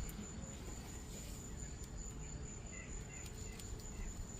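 Quiet background: a faint, steady, high-pitched whine over a low rumble, with a few faint light clicks and two short chirps about two seconds in.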